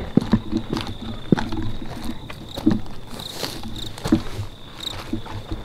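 Footsteps crunching and rustling through dry brush and undergrowth, irregular steps with twig snaps, over a faint steady high-pitched whine.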